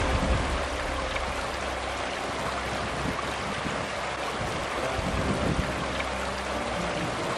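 Shallow river running over rocks: a steady rush of water. Background music fades out at the start and begins to come back faintly near the end.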